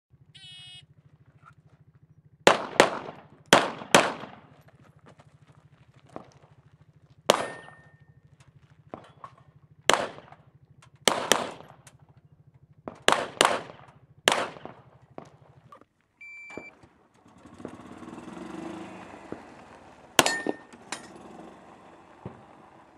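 A short shot-timer beep, then a string of 9mm 1911 pistol shots, many fired in quick pairs. After a break, a second beep starts another string of shots.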